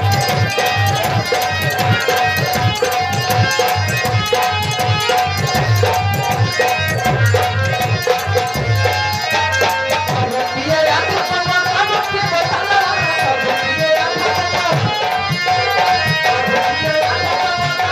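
Live folk dance music for a nautanki stage show: a hand drum beats a fast, steady rhythm under a sustained melody line.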